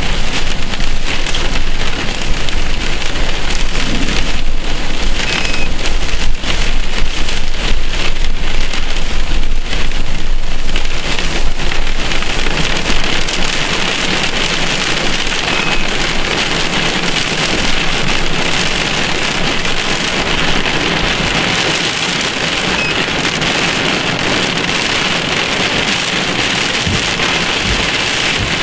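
Heavy rain falling in a thunderstorm, a dense steady hiss. It is louder with a low rumble underneath for the first dozen seconds, then settles into an even, slightly lighter hiss.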